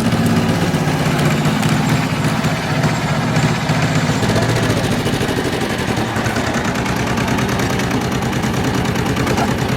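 A vehicle engine running steadily in gear under throttle, with a rapid, even knocking beat.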